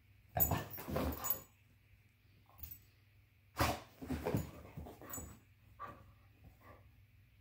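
Carolina Dog vocalizing in short bursts: a pair about half a second in, a longer run of several about three and a half seconds in, then a few softer ones.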